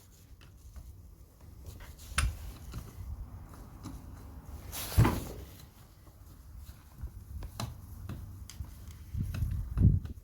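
Handling noises of hand tools and chainsaw parts on a workbench: scattered light clicks and knocks, a short rasping scrape about five seconds in, and a few dull knocks near the end, as a screw is worked into place.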